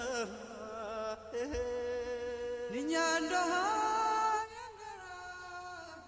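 Background music with a voice singing long, wavering held notes that glide between pitches; the music drops quieter about four and a half seconds in.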